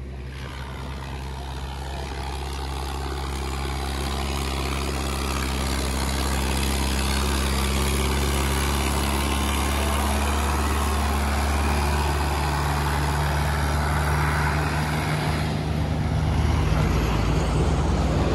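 Mahindra Arjun 605 DI tractor's four-cylinder diesel engine pulling at steady revs in first gear, hauling a fully loaded trolley of about 150 quintals up a steep climb; it grows louder over the first few seconds as it nears. A lorry passing adds to the engine noise near the end.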